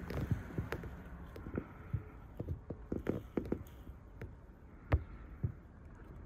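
Scattered soft taps and knocks, irregular and a second or so apart, over a faint steady background hiss.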